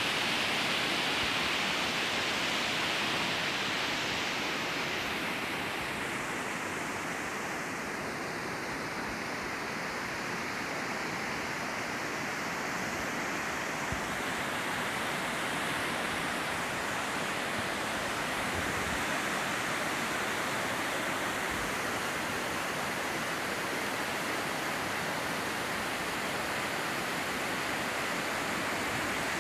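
A river rushing steadily, a dense, even noise of flowing water.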